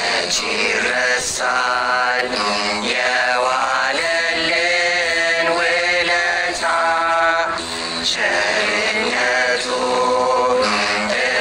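A begena mezmur, an Ethiopian Orthodox spiritual song: a voice singing in a slow, drawn-out chanting style to the begena.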